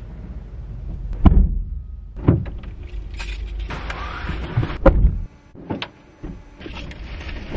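Car doors being opened and shut from outside, heard inside the parked car's cabin: three heavy thumps, the last about five seconds in, after which the outside background noise drops away.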